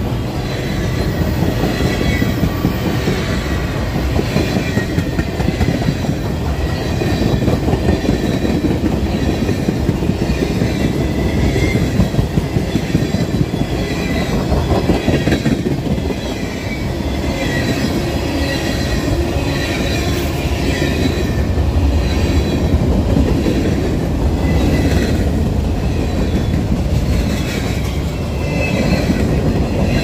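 CSX freight train rolling past at close range: a steady rumble of railcars on the rails, with wheels clattering over rail joints and faint, intermittent wheel squeal.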